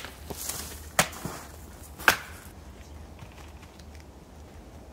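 Three sharp clacks about a second apart, the last the loudest, from a pair of snowshoes being handled and set down on the snow. After them come faint rustles and crunches of snow as a boot is worked into a snowshoe binding.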